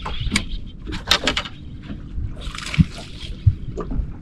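Choppy lake water sloshing and splashing against a bass boat's hull, over a low rumble, with scattered sharp clicks and knocks, a cluster of them about a second in.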